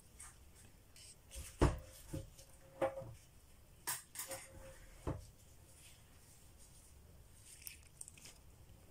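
A handful of light knocks and clinks as small items are handled and set down on a stainless-steel table, about six between a second and a half and five seconds in, some leaving a brief metallic ring.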